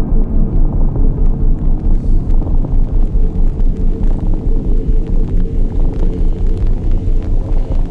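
A loud, low throbbing drone that pulses evenly about four times a second.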